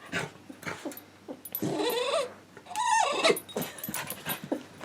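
Jack Russell terrier whining twice, two drawn-out pitched calls that bend up and down in pitch, the first starting about one and a half seconds in and the second about a second later.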